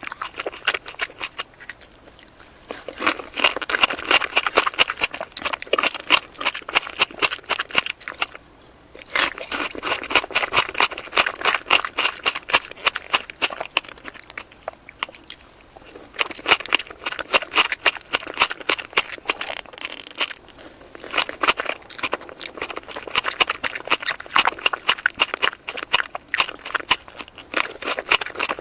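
A person eating strawberry cake close to the microphone: dense clicking chewing and mouth sounds in bouts of a few seconds, with short quieter pauses between mouthfuls.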